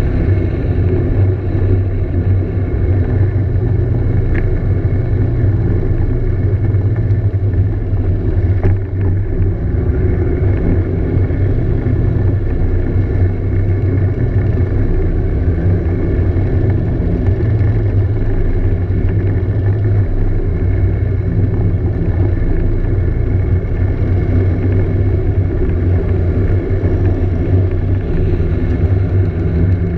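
Scooter engine running steadily at cruising speed, a low even drone heard from the moving scooter, with other vintage scooters riding close ahead.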